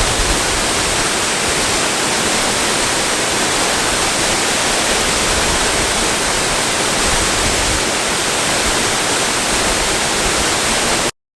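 Waterfall rushing steadily, then cutting off abruptly near the end.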